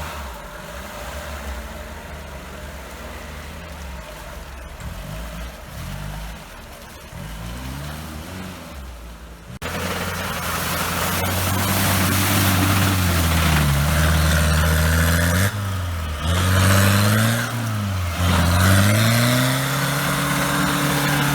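Off-road 4x4 engine working through mud, revving up and down. About ten seconds in, it jumps abruptly to a louder, closer engine revving hard, its pitch rising and falling again and again over a rushing hiss.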